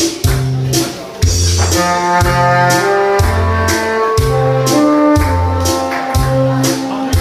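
Saxophone playing a melody over a backing track with a steady drum beat and bass line; the saxophone comes in about two seconds in with long held notes.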